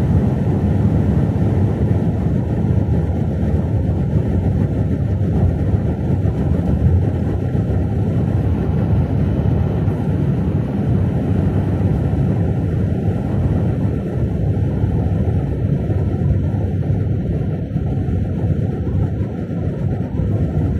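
Steady low rumble of tyre and engine noise heard from inside a vehicle cruising at highway speed.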